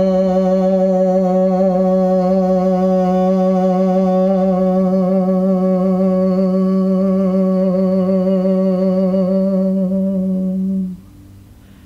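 A woman's voice toning one long, steady note, hum-like and low, with a slight waver in its overtones. It is held for about eleven seconds and stops shortly before the end. This is sound-healing vocal toning meant to clear and activate the root chakra.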